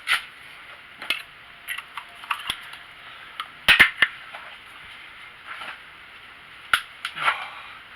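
Irregular knocks and clunks as a new 12-volt car battery is handled and set into its tray, the loudest a pair of sharp knocks about four seconds in.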